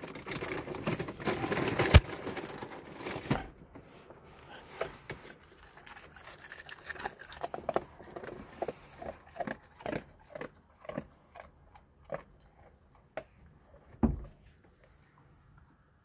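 Dog crunching dry cat kibble eaten from a man's hand, a run of short crisp crunches about two or three a second. It opens with a burst of close rustling and a sharp knock about two seconds in, and there is a low thump near the end.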